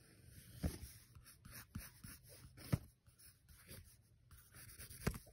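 Pencil sketching on lined notebook paper: soft scratching strokes, broken by about four sharp taps.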